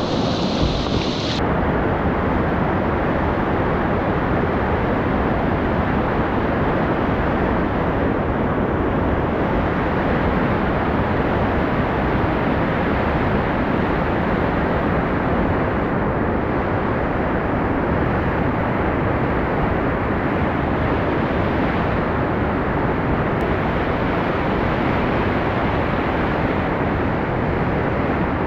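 Whitewater of a river in high flood rushing steadily. The upper hiss drops away about a second in.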